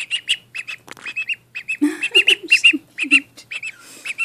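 Runner duckling peeping: many short, high peeps in quick succession.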